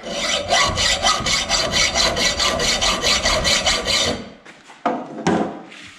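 Hacksaw cutting a starter groove into galvanized steel pipe, a rapid, even back-and-forth rasp of about five strokes a second. It stops about four seconds in, followed by a few short scrapes.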